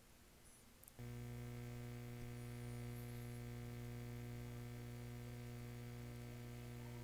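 Low, steady electrical mains hum with a faint buzz above it, coming on abruptly about a second in and holding unchanged.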